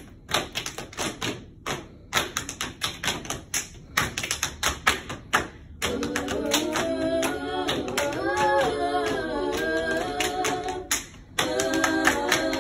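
An a cappella group keeps a quick rhythm of hand claps and body pats. About six seconds in, the voices join with held wordless chords while the clapping goes on, break off briefly near the end, and come back in.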